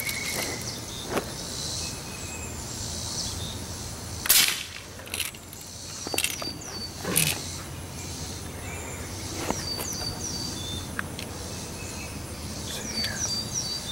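A single pellet-gun shot about four seconds in, a short sharp crack that is the loudest sound, followed by a couple of fainter knocks. Small high chirps come and go over a steady outdoor background.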